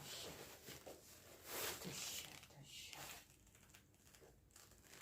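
Faint rustling and handling noise as a leather bag and its wrapping are turned over by hand, with a couple of brief swishes about one and a half to two seconds in.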